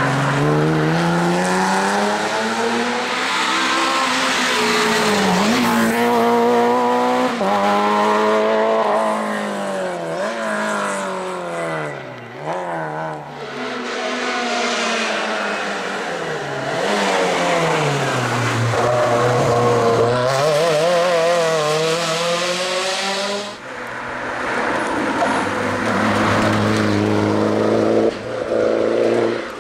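Rally car engines, a Porsche 911's flat-six and then a Peugeot 309's four-cylinder, revving hard through the gears on a tarmac stage. The pitch climbs in each gear and drops at every shift and braking downshift. The engine note changes abruptly twice as one car gives way to the next.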